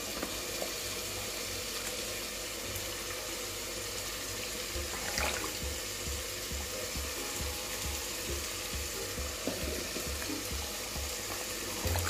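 A spatula stirring through a watery, bubbling mash of soaked barley and lentils in chicken stock in a pot, with a steady wet hiss and a light knock against the pot about five seconds in.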